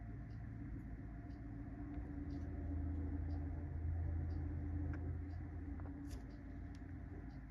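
Steady low hum, a little louder in the middle, with faint scattered ticks and taps from fingers handling a plastic Tombow Air-press ballpoint pen and its wire clip.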